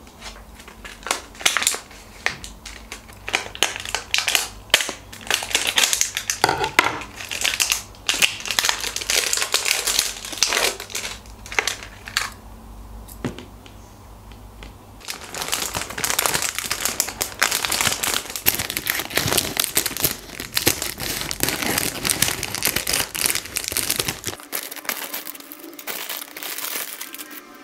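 Plastic food packaging crinkling and rustling as cupcakes are taken from their wrappers and bag and set on a table, with light taps of items being put down. The crinkling grows denser and louder about halfway through.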